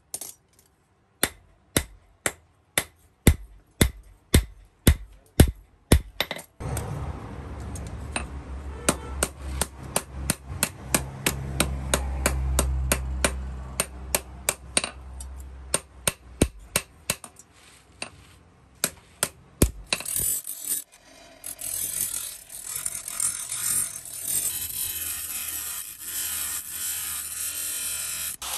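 Hand hammer striking a forged steel knife blade on a steel anvil post, about two sharp ringing blows a second. From about six seconds in the blows go on over a low steady hum. About twenty seconds in, the hammering gives way to the steady hiss of a motor-driven abrasive disc grinding the steel blade.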